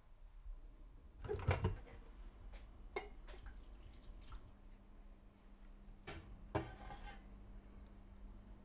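Kitchen clinks and knocks: a glass coffee carafe and a ceramic mug being handled, then a metal spoon against a pot and bowl, with the loudest clatter about a second and a half in. A faint steady hum comes in about halfway.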